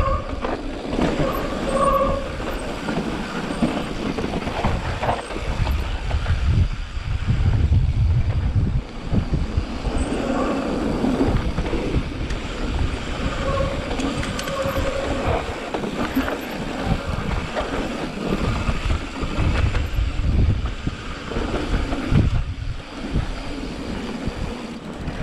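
Wind buffeting an action camera's microphone, with the rumble and rattle of a mountain bike's tyres and frame running fast down a dirt trail.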